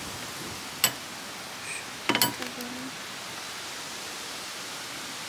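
Metal forks clicking against a wooden cutting board and plate while picking at grilled fish: one sharp click about a second in and a quick cluster of clicks around two seconds in. Under them runs a steady rushing background noise.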